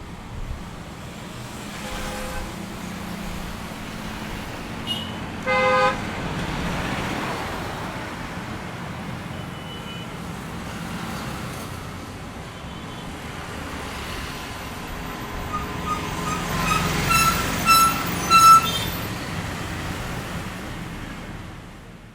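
Road traffic passing by, engines and tyres rising and falling as vehicles go past, with vehicle horns honking: one short blast about five and a half seconds in, and a cluster of louder toots near the end. The sound fades out at the very end.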